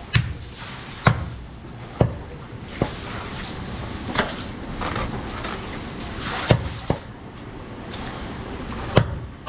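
A large butcher's knife chopping goat meat against a round wooden chopping block: about eight sharp, unevenly spaced chops over a steady background hum.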